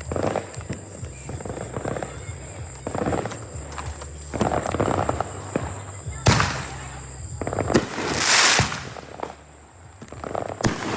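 Consumer fireworks going off close by, loud, as a string of crackling bursts. A sharp bang comes about six seconds in, followed a second later by a hissing crackle that lasts about a second.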